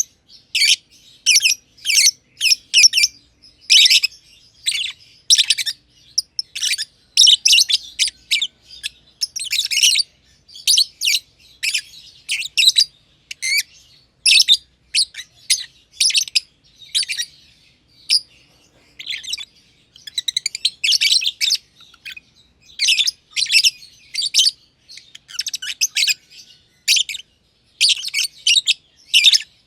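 Masked lovebirds chirping: a near-continuous string of short, shrill chirps, about two a second, with hardly a pause.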